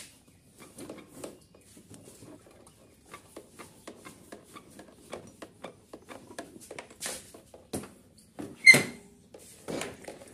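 Scooter body and engine bay being handled and rocked: irregular light rubbing, creaking and small clicks from plastic panels and parts, with one sharper, louder click near the end.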